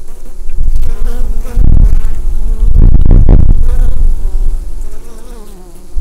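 A mass of honeybees buzzing at a hive: many wavering, overlapping drones that rise and fall in pitch. The buzz swells much louder, with a deep rumble, from about one to four seconds in, then eases back.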